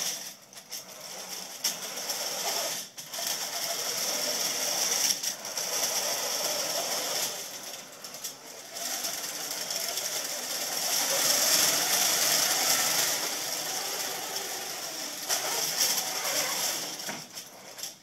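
Electric drive motors and gearboxes of an omni-directional-drive robot whirring as it drives across carpet, with a rattle from the frame; the sound rises and falls with the driving and drops briefly several times as the robot pauses.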